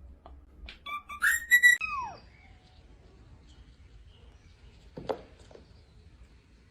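A few short, high whistled notes about a second in, stepping in pitch and ending in one falling whistle. A single sharp click or tap follows near five seconds.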